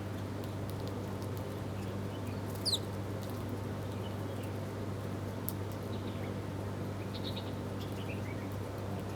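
Birds chirping now and then, with short high calls and one loud, sharp call about a third of the way in, over a steady low hum and background noise.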